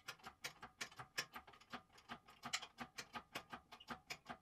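A hand ratchet clicking in quick, uneven strokes as engine mount bolts are turned.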